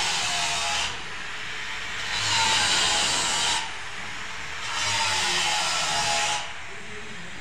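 A small pointed metal carving tool scraping into gypsum plaster in three long strokes, each a second or more, with a faint squeal as the point cuts the lines of a border design.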